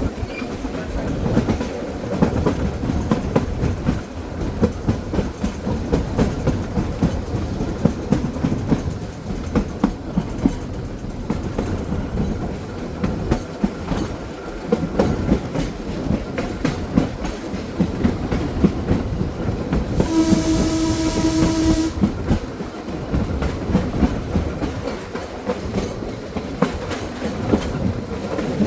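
A 1926 Wason-built electric trolley car running along its track: a steady rumble with the wheels clicking over rail joints. About two-thirds of the way through, a horn or whistle sounds one steady blast of about two seconds.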